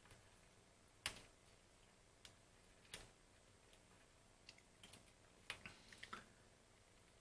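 Scattered small clicks and taps of handling as a test lead connection is moved on the phone's keypad, with the sharpest click about a second in, another about three seconds in, and a run of lighter clicks near the end.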